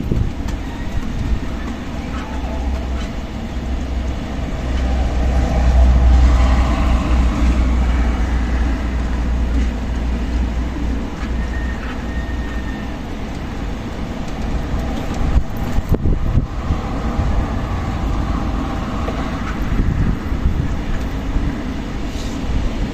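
Strong desert wind gusting across the microphone, a deep buffeting rumble under a steady rushing hiss, swelling to its loudest about five to nine seconds in.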